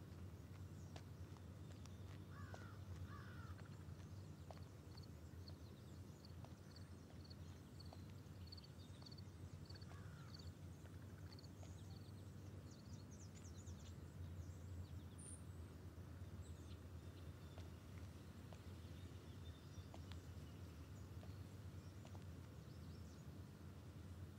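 Faint outdoor garden ambience: a steady low rumble with distant birds calling, including a run of short high chirps about twice a second through the middle and a few brief calls near the start.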